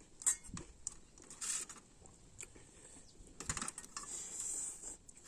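Faint eating noises over a noodle meal: scattered light clicks and taps, with a few short hissing slurps, the longest near the end.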